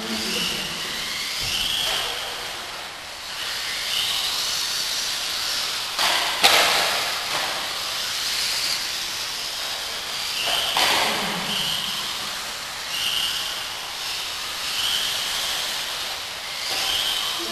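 Several electric radio-controlled off-road buggies running on a dirt track: a steady hiss of motors, gears and tyres, with high motor whines rising and fading as cars accelerate and pass. A single sharp knock comes about six and a half seconds in, like a car landing or striking the track border.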